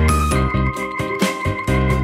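Upbeat background music with a steady beat and keyboard-like notes.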